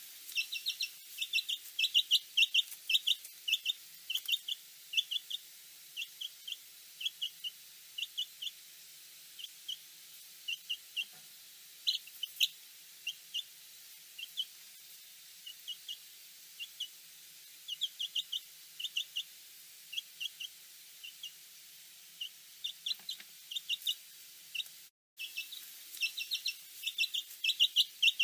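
Small bird chirping: short, high chirps in quick groups of two to four, repeated over and over with short pauses, and a brief break about 25 seconds in.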